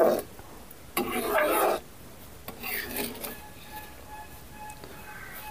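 Metal spatula scraping and stirring fish curry in a metal kadhai: three scraping strokes, the loudest about a second in.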